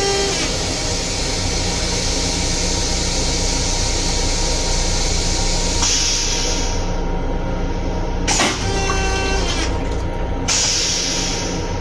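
LIRR M7 railcar toilet flushing: rinse water hisses steadily into the stainless steel bowl for about six seconds. After a click, a second, shorter rinse of about two seconds follows, over the steady hum of the train.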